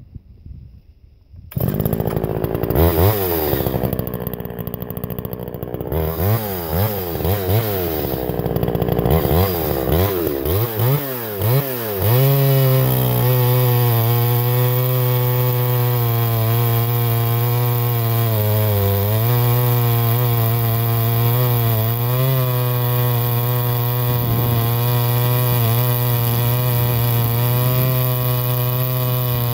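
P41S two-stroke chainsaw with an enlarged reed block opening and a bored-out Tillotson HS147D carburettor. It starts about a second and a half in, is revved up and down several times, then from about twelve seconds is held at a steady high pitch without cutting, with a brief dip near nineteen seconds.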